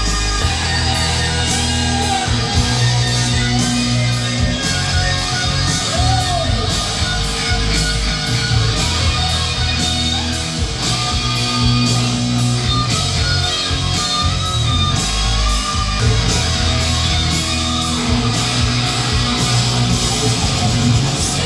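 Rock music with electric guitar and a steady drum beat, played loud through Sony ZUX9 hi-fi speakers driven by a Philips FWC555 mini system.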